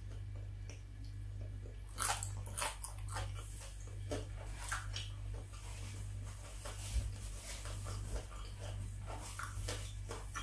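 Close-up mouth sounds of crispy battered fried chicken being bitten and chewed: a run of sharp crunches beginning about two seconds in, over a steady low hum.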